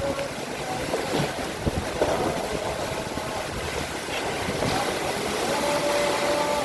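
Heavy rain driven by strong wind: a steady rushing noise, with a few knocks along the way.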